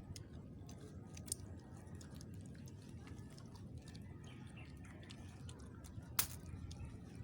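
Faint scattered clicks and taps, with one sharper click about six seconds in, over a low steady rumble.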